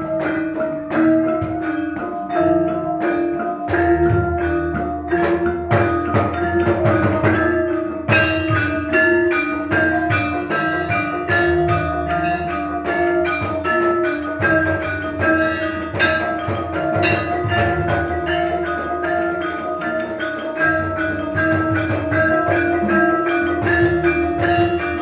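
Javanese gamelan ensemble playing a piece: bronze keyed metallophones struck in a steady, even pulse and left ringing, over low kendang drum strokes that come and go.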